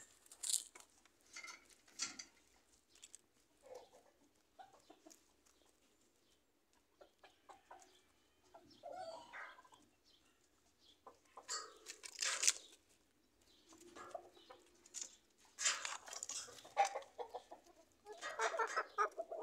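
Chickens clucking in short, scattered calls, with louder runs of calls in the second half.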